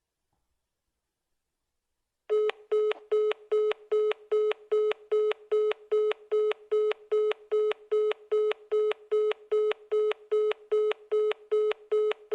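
iPhone calling beep tone: after about two seconds of silence, short beeps on a single tone start and repeat quickly and evenly, about three a second.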